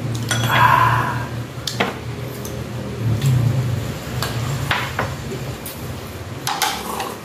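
Chopsticks and ceramic bowls and plates clinking at a meal table: scattered light clicks and taps. A steady low hum runs underneath and stops near the end.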